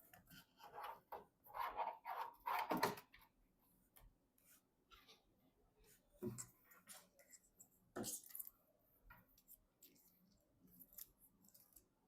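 Hands working with computer parts and packaging: a few seconds of rustling and scraping, then two sharp clicks about six and eight seconds in, with faint small clicks after.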